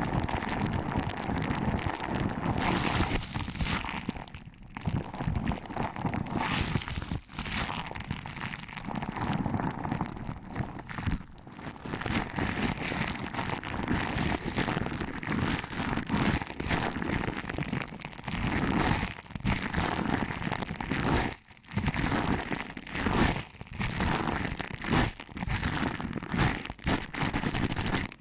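Fingers pinching and rubbing the ears of a binaural ASMR microphone, making a dense, irregular crinkling and crunching rustle with a few brief pauses.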